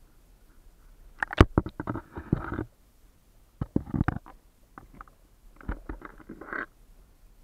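Muffled knocks and splashing on a waterproof camera housing sitting at water level in a stream, in three bursts: one a little over a second in, one near the middle and one near the end.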